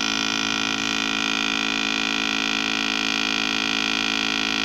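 Small brushed DC motor running steadily on a homemade generator rig, giving an even hum with a bright hiss on top.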